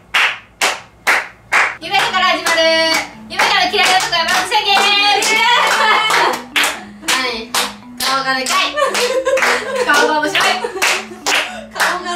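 Several people clapping their hands in a steady rhythm, about three claps a second. About two seconds in, singing voices join over the claps.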